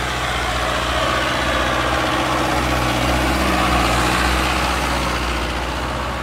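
Mahindra Arjun Novo 605 DI 4x4 tractor's diesel engine running steadily under load, pulling a tine cultivator through soil. It grows louder as the tractor passes close, about halfway through, then eases off.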